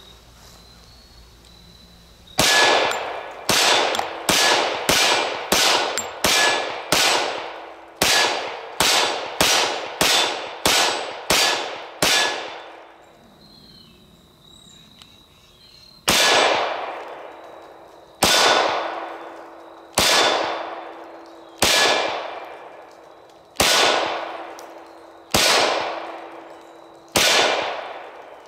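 Glock 24 long-slide pistol firing .40 S&W rounds: a fast string of about fifteen shots, a pause of some four seconds, then seven slower shots about two seconds apart, each shot trailing off in a long echo.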